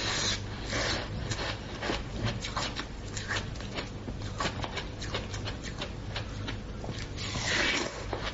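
Close-up eating sounds: rapid wet crunching and chewing clicks, with a louder slurp near the end.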